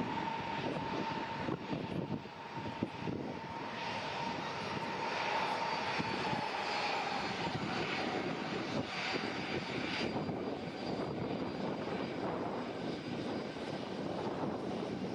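Jet airliner engines running with a steady rush and a whine that sinks slowly in pitch over the first several seconds, then fades into the rush.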